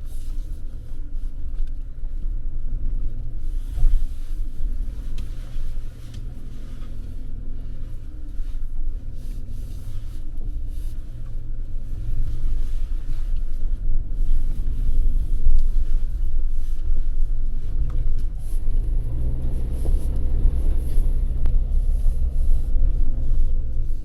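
Suzuki Jimny on the move: a steady low rumble of engine and road noise that swells and eases slightly.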